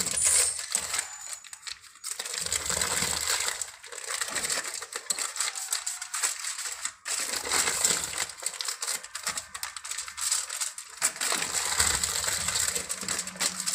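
Aluminium foil crinkling and crackling continuously as hands fold and roll soft gajak dough inside it.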